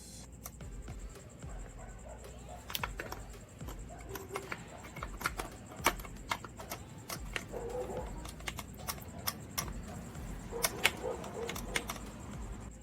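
Irregular light clicks and taps of metal clutch parts being handled while the throwout bearing on the release mechanism is worked back and forth.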